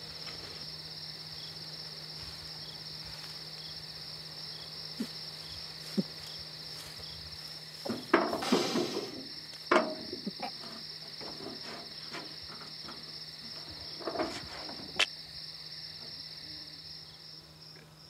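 Crickets chirping steadily at night over a low steady hum, broken by a few short sudden noises, the loudest about eight seconds in and more around ten and fifteen seconds.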